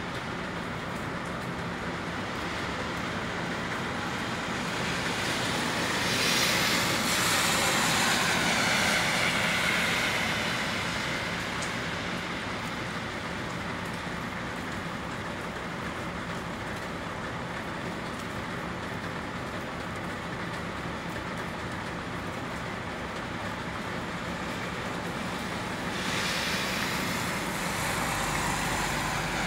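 A municipal utility vehicle's engine running steadily, with two louder stretches of rushing mechanical noise, about six seconds in and again near the end.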